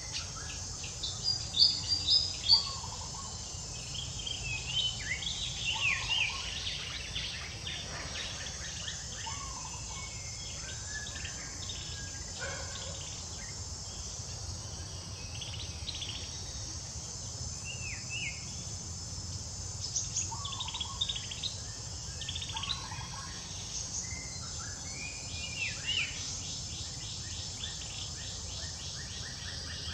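Outdoor natural ambience: a steady drone of insects with scattered bird chirps and short calls. The loudest chirps come in a quick cluster in the first few seconds.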